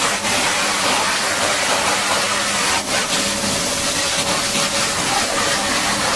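High-pressure water jet hissing steadily as it sprays down a Caterpillar D8T bulldozer, with a faint steady engine hum beneath. The spray breaks off for an instant about three seconds in.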